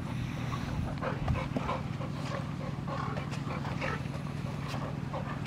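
Golden retriever and Labrador retriever playing tug-of-war with a rope toy: dog play sounds and scuffling in short, scattered bits over a steady low hum.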